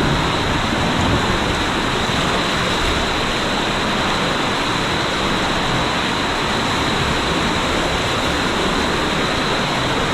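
Steady rush of water along a tube waterslide, a loud even hiss with no breaks.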